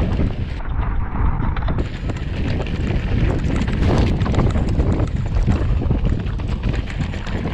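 Wind rumbling on the action camera's microphone as a mountain bike descends a rocky dirt trail, with the tyres crunching over gravel and stones and the bike rattling constantly.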